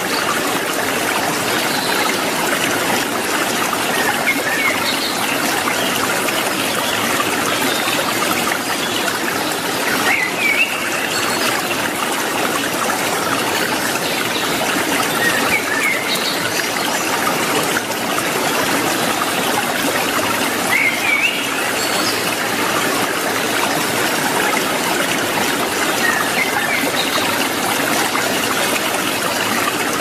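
Steady rush of flowing water, with short high chirps from a cililin bird every few seconds.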